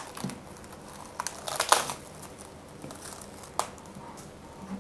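Plastic cling film crinkling in a few short bursts as it is pressed and smoothed around the rim of a glass bowl, with one sharp tick about three and a half seconds in.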